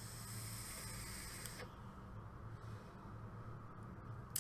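Faint airy hiss of a long draw through a dual-coil rebuildable dripping atomizer with a high thin whistle in it, lasting about a second and a half. A quieter breathy hiss follows as the vapour is breathed out, with a brief click near the end.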